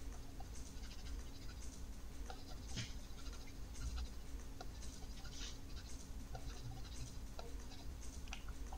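Palms rubbing together briskly: soft, irregular scratchy swishes of skin on skin, over a low steady hum.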